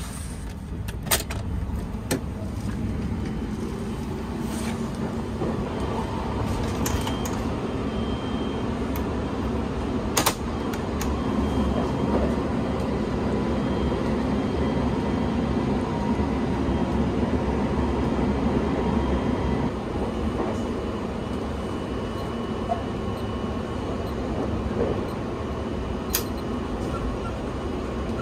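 Steady low rumble of the Sunrise Express sleeper train running, heard from inside a sleeper car, with a few sharp clicks scattered through it, the loudest about ten seconds in.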